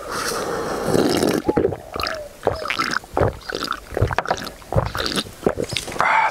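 A man drinking from a can in long gulps, with repeated swallowing and wet clicking sounds at irregular intervals.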